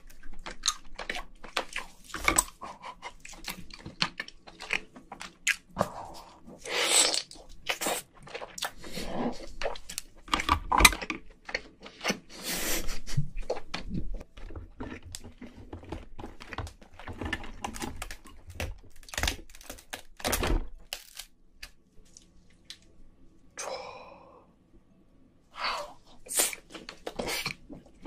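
Close-miked cracking and snapping of cooked king crab leg shell broken apart by hand, with the meat pulled out and chewed, in many sharp clicks and crackles.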